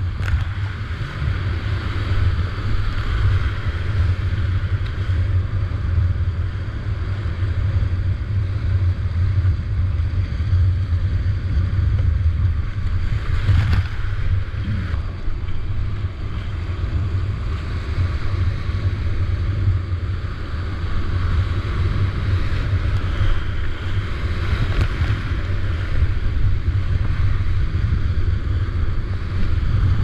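Whitewater rapids rushing around a kayak, heard close to the water from the boat, with a heavy low rumble of water and wind on the microphone and a brief sharper rush about halfway through.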